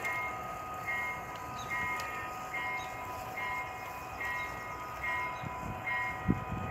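A model railroad bell ringing steadily, a clear two-tone ding a little faster than once a second, over a faint steady hum. Near the end, the clatter of the model train's wheels on the track grows louder.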